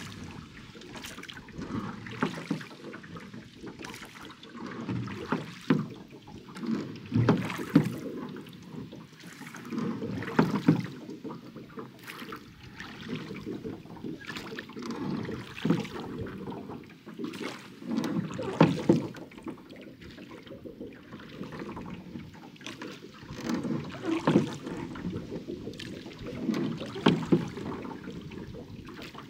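Small rowing boat being rowed: the oars dip and pull through the lake water in a steady rhythm, a stroke about every two to three seconds, each with splashing and short knocks.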